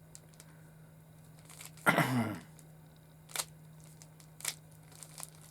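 Plastic Rubik's Cube being twisted by hand: scattered sharp clicks as the layers turn, with a brief vocal mutter about two seconds in.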